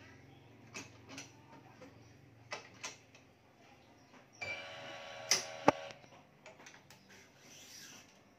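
Digital badminton stringing machine at work: a few light clicks of string and clamps, then the electronic tension head's motor whirring steadily for about a second and a half as it pulls the string to tension, with two sharp clicks near its end. Small clicks and taps of string handling follow.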